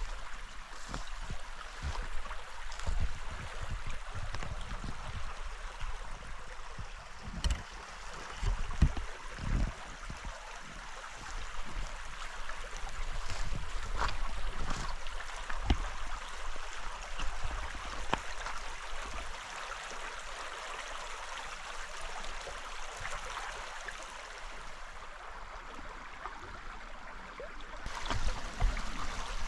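Stream water running steadily, with a few low thumps about eight to ten seconds in.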